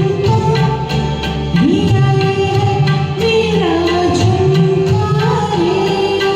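Hindi film-song karaoke music: a tabla rhythm under a sustained melodic line that bends and glides in pitch.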